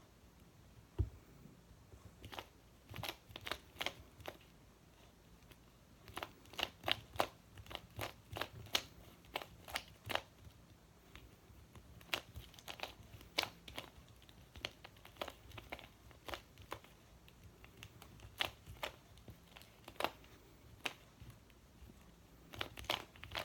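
Plastic speedcube being turned fast during a timed solve: irregular bursts of clicking and clacking as the layers snap round, with short pauses in between.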